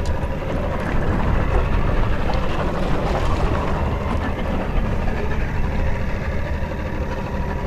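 Boat's outboard motor idling, a steady low rumble.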